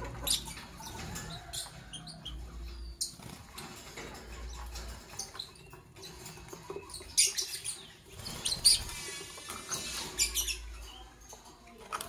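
Caged Fischer's lovebirds giving short, sharp, high chirps now and then, with a cluster of louder chirps about two-thirds of the way through.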